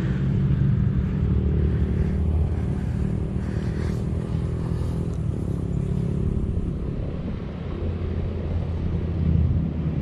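Aircraft engines droning as a steady low rumble, with no clear rise or fall.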